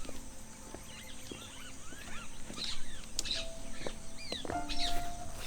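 Many short birds' chirps and calls repeating throughout, with a few soft held tones of background music underneath.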